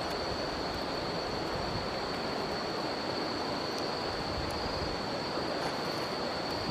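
A river rushing steadily, with a continuous high insect trill over it and a few faint crackles from a campfire.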